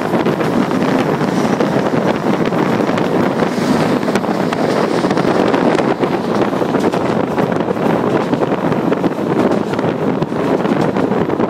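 Wind buffeting a microphone held out of a moving train's window, over the steady running noise of the train on the track.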